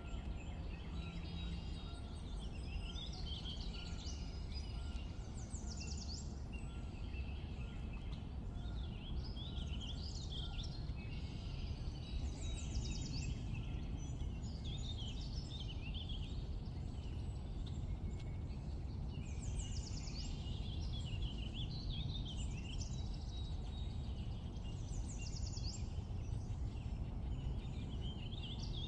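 Birds singing over a steady low rumble and hiss, their song coming in clusters of quick chirps and trills every few seconds.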